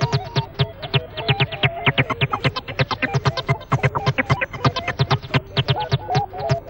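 Electronic dance music from a club DJ set: a rapid, steady beat of sharp percussive hits over low kick pulses, with a held synthesizer line.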